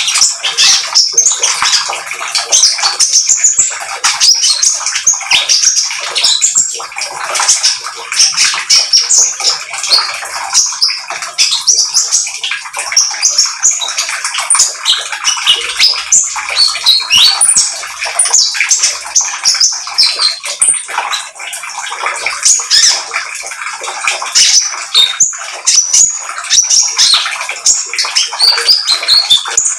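Brown-throated sunbird (konin) singing vigorously: a fast, unbroken stream of high chirps and trills in the rapid chattering 'trotol' style.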